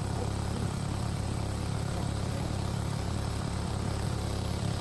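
Small engine-driven water pump running steadily, pumping out a stretch of stream.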